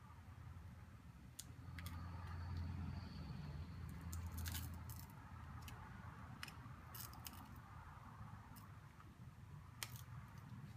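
Small, sharp clicks and ticks of tools against a smartphone's casing as the display is pried off, scattered irregularly, a few in quick pairs, over a low handling rumble that is strongest a couple of seconds in.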